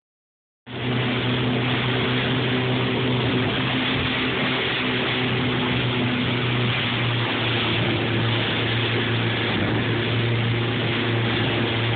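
Powerboat engine running at speed, a steady drone under the loud rush of the wake and spray. It cuts in abruptly just under a second in.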